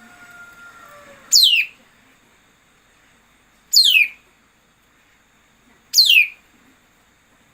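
Bird call played as a trapping lure: three loud, sharp whistles, each falling steeply in pitch, a little over two seconds apart. A fainter, drawn-out lower call fades out about a second in.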